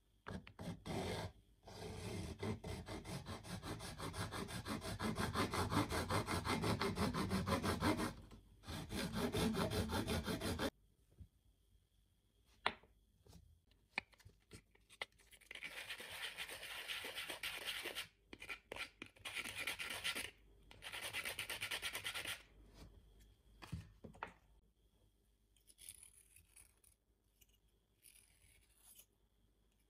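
Hacksaw blade cutting through blue PVC pipe with rapid back-and-forth strokes. After a pause, the cut end of the pipe is rubbed on sandpaper with a steady scratchy rasp, and near the end a small knife scrapes faintly at the pipe's inner edge to trim it.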